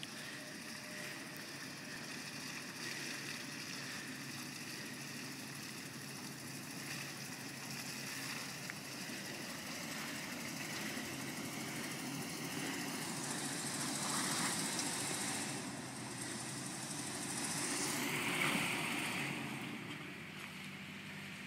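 SUV engine running at low speed as the vehicle crawls over a rocky, muddy trail. It swells louder twice in the later part, around two thirds of the way through and again near the end, as it climbs.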